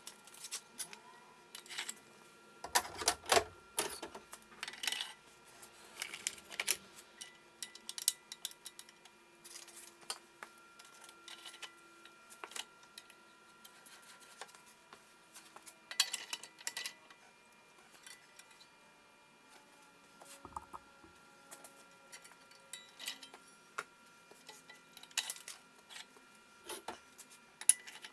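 Irregular light clicks and clinks of small hard objects being handled, a few sharper knocks among them, over a faint steady high whine.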